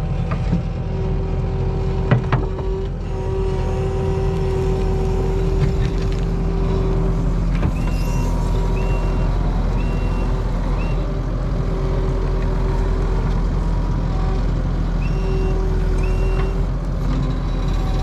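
Kubota SVL75-2 compact track loader's diesel engine running steadily as its rock bucket digs a boulder out of sod, with a single knock about two seconds in. Its reversing alarm beeps about once a second in two short spells, around the middle and again near the end.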